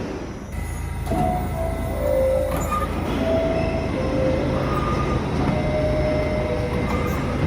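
High-pitched New York City subway car door chimes sounding repeatedly: a series of short descending tones at slightly different pitches, some overlapping as from more than one car. Under them runs the steady rumble and hum of the train.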